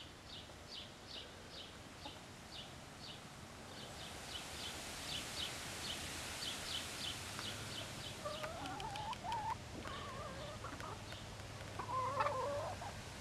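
Hens making wavering, warbling clucks from about eight seconds in, loudest near the end. Before them runs a steady series of high, short chirps, about two or three a second.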